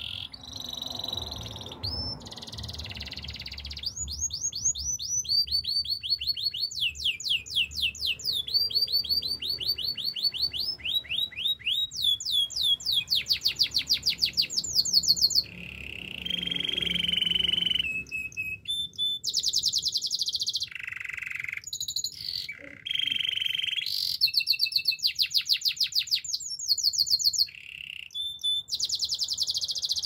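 Canary singing a continuous song of fast trills: each phrase is one note repeated rapidly many times, and the pitch changes every second or two, with a couple of brief pauses.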